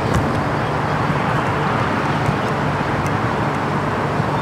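Steady road traffic noise with a constant low hum.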